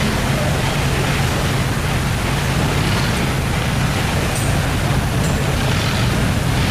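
Steady low rumble of boat engines running, mixed with the even rush of fast-flowing water through the open culvert gate.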